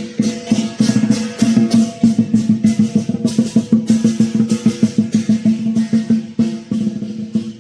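Lion dance percussion: a drum beaten in a fast, steady rhythm with clashing cymbals and a ringing gong.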